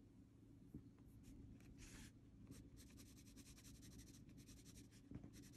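Faint scratching of a Derwent Inktense pencil on paper: quick back-and-forth colouring strokes in a few short runs with brief pauses between them.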